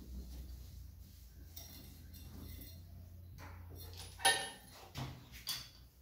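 Plastic bag rustling as a new chrome basin mixer tap is unwrapped, then the metal tap clinking and knocking several times as it is handled, the sharpest clink about four seconds in.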